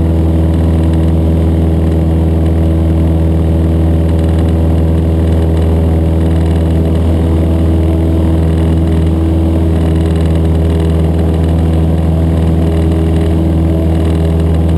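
Cessna 152's four-cylinder Lycoming O-235 engine and propeller droning steadily in flight, heard loud from inside the small cabin.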